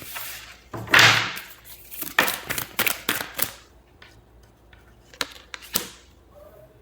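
Tarot cards being handled: a short swish of shuffling, a quick run of sharp card snaps and slaps, then two single snaps near the end.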